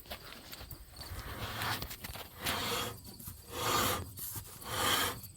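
Front brake of a Dodge Dakota grinding as the wheel is turned: scraping swells about once a second, getting louder. It is metal on metal, the caliper's backing plate rubbing on the rotor where the pad has worn away.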